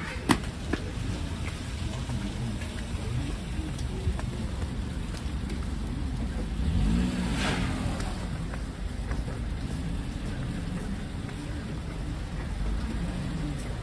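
Street traffic on a slush-covered road: car engines and tyres hissing through wet snow, with one car passing close about seven seconds in, its pitch rising then falling. A sharp knock sounds right at the start.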